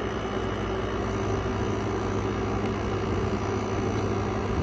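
Air conditioner running: a steady hum from the compressor with the whoosh of its fan, unchanging throughout.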